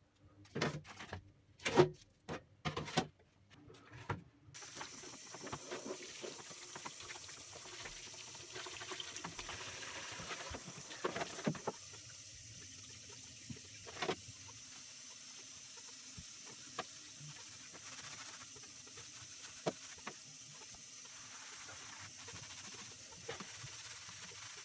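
Sheet-metal barbecue parts knocking against each other and the plastic bowl. About four seconds in, water starts running steadily into the bowl while the parts are scrubbed, with a few more metal knocks now and then.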